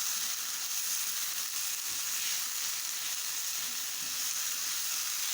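Chopped vegetables sizzling as they fry in hot oil in a pan, a steady hiss.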